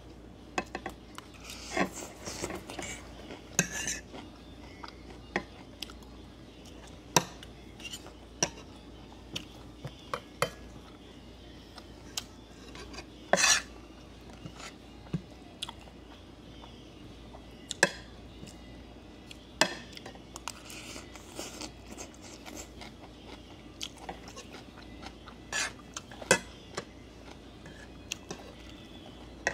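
Eating utensils clinking and tapping against dishes during a meal: scattered sharp clinks a second or two apart, one louder near the middle.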